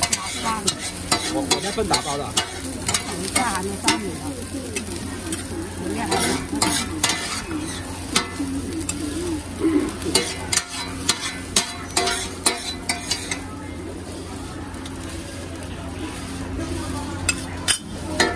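Metal spatula scraping and clacking against a flat griddle as egg fried rice is stir-fried, over a steady sizzle. The strikes come thick and fast for most of the stretch, then thin out to a few scattered clicks near the end.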